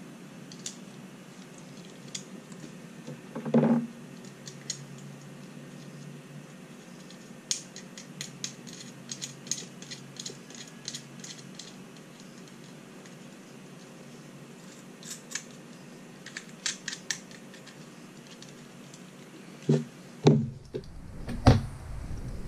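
Small bolts, nuts and a solid state relay being handled and fitted by hand onto an aluminium bracket: scattered light clicks and ticks, with a louder knock about three and a half seconds in and a few heavier bumps and handling noise near the end.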